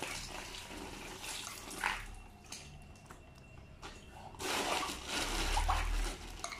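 Water running from a kitchen tap and splashing over hands and fish being rinsed. It stops about two seconds in, then runs again, louder, a little after four seconds.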